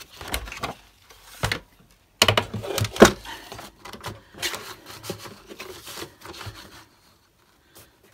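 A sheet of patterned paper being handled and slid into a paper trimmer: paper rustling and scraping, with several sharp knocks and taps, the loudest about three seconds in.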